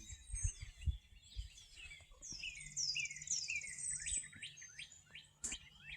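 Wild songbirds singing: a series of quick, high, down-slurred chirps with a buzzy trill in the middle, fairly faint. A few soft low thumps sound in the first second or so, and a sharp click comes near the end.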